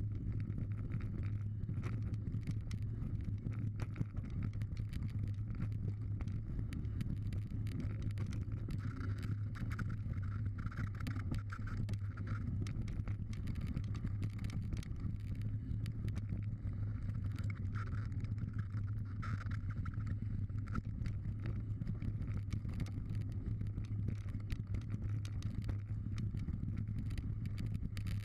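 Mountain bike riding down a gravel and dirt trail: a steady low rumble of knobbly tyres rolling over the ground, with frequent small clicks and rattles from the bike over rough stones.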